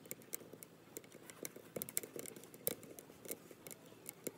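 Wood blocks burning in the firebox of an ammo-can rocket stove, crackling with irregular sharp pops and snaps, the loudest about two and two and a half seconds in.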